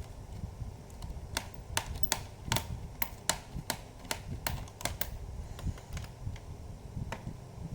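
Irregular sharp clicks from pressing keys and buttons on an HP Pavilion G4 laptop, about two a second, mostly in the first two-thirds. The laptop still will not switch on.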